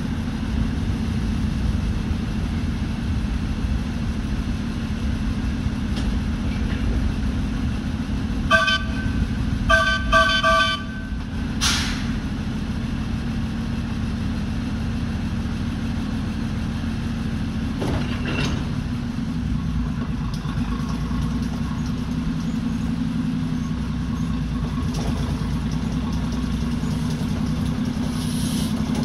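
Steam locomotive whistle giving a few short toots over a steady low rumble, followed by a brief burst of noise.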